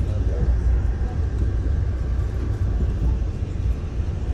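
Steady low rumble of a moving passenger train heard from inside the coach: wheels running on the rails and the car's running noise.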